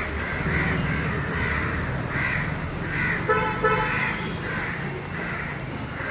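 Crows cawing again and again over a low traffic rumble, with two short car-horn toots about halfway through.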